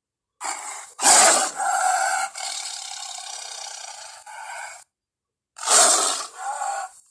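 Made-up Ceratosaurus roar sound effects: a long roar of about four seconds that fades out, then after a short pause a second, shorter roar.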